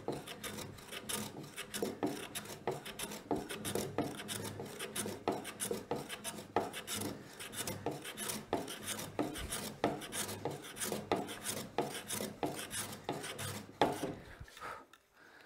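Hand smoothing plane with a freshly sharpened blade, planing the rough edge of a hard maple board in short, quick, repeated strokes, each a rasping shave of wood, stopping near the end.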